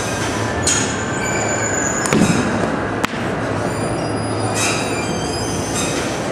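Batting-cage pitching machine running with a steady mechanical whir and a high thin squeal. A ball knocks about two seconds in, and there is a sharp click about a second later.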